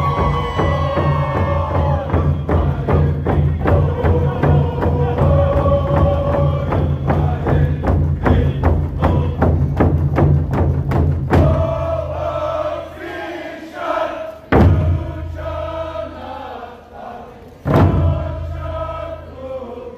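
A group of voices singing a chant in unison over a steady drumbeat of about two to three beats a second. About eleven seconds in the drumming stops while the voices carry on, and two single loud thumps follow.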